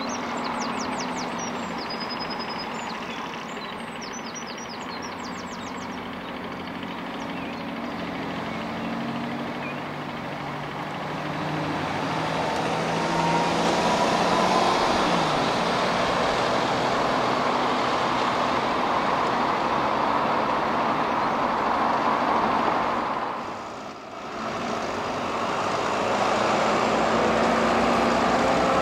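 Buses running and pulling past, the engine noise swelling about twelve seconds in as a single-decker turns across the road. A few high chirps sound in the first few seconds.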